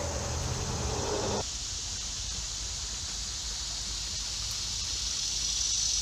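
Steady high-pitched chorus of insects, growing louder toward the end. For the first second and a half a low rushing noise lies over it, then cuts off abruptly.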